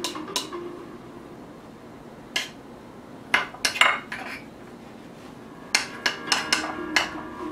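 Kitchen knife knocking on a cutting board while cutting garlic: a few separate knocks, then a quick run of about six chops near the end.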